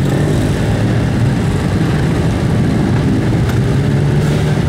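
Many motorcycle engines running together at idle and low revs, a steady mixed drone from a column of motorcycles setting off slowly.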